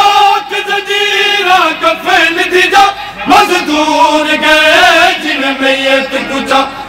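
Male voices chanting a noha, a Shia mourning lament, in long held and wavering melodic lines, with a short break about three seconds in.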